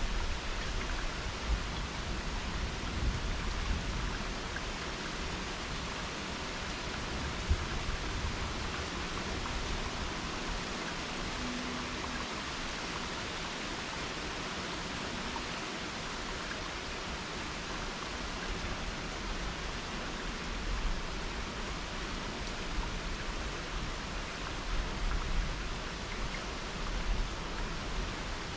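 Steady rain hiss during a thunderstorm, with a low rumble at the start and again near the end.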